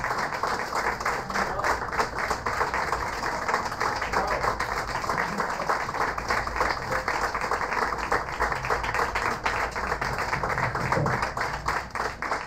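Small audience applauding steadily, many hands clapping together.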